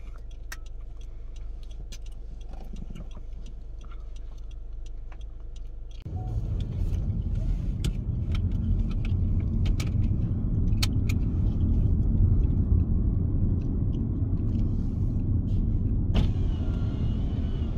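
A car heard from inside the cabin, idling with a steady low hum. About six seconds in it pulls away, and the engine and tyre rumble jumps louder and stays up as it drives. A sharp click sounds near the end.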